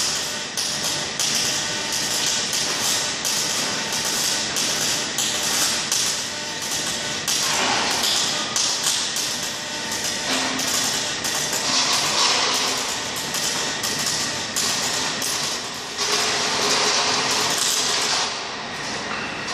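Robotic arc welding: the welding arc at the robot's torch crackling and sputtering continuously as it runs a weld along a steel plate. It cuts out about 18 seconds in, leaving a quieter steady hum.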